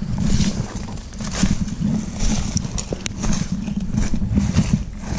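Footsteps of a hiker pushing through dense brush, about two steps a second, with leaves and branches swishing against him and a sharp snap about three seconds in.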